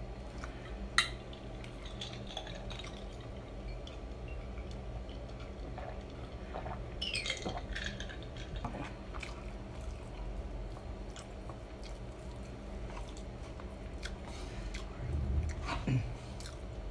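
Close-up eating and drinking sounds: chewing, a sharp click about a second in, then a glass of iced cola drunk from around the middle with liquid and ice-against-glass sounds, and a wooden spoon scraping and knocking on a wooden plate near the end.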